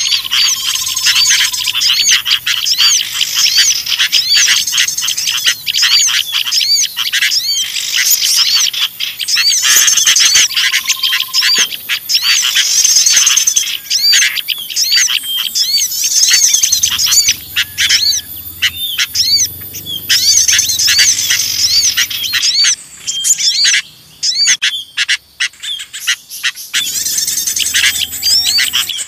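Bird-lure recording of a dense, noisy chorus: agitated chattering of sooty-headed bulbuls mixed with the busy calls of small songbirds, many quick rising-and-falling chirps a second. The chorus thins out briefly near the end.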